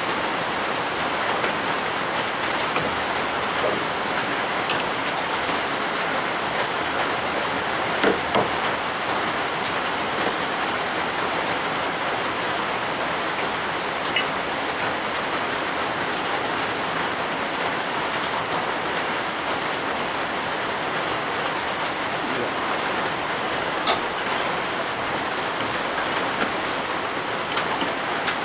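A steady, even hiss throughout, with scattered light clicks and a single knock about eight seconds in. The clicks come from a steel speed square, a torpedo level and a wrench being handled on a belt grinder's steel work rest while it is squared and levelled.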